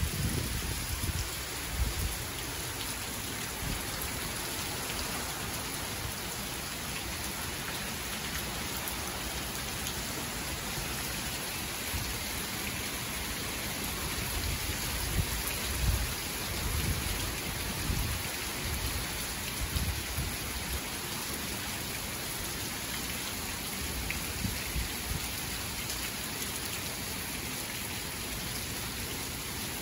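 Steady downpour of tropical-storm rain, an even hiss of rain on the ground. A few brief low rumbles rise above it, one near the start and several around the middle.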